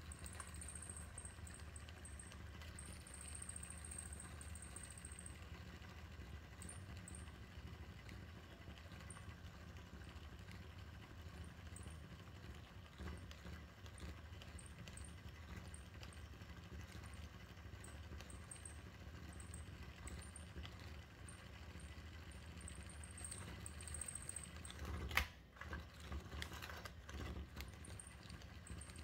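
Small battery motor of a butterfly cat toy running steadily as it spins a feather butterfly on a wand, with a faint high whine that comes and goes. A single sharp click comes about 25 seconds in.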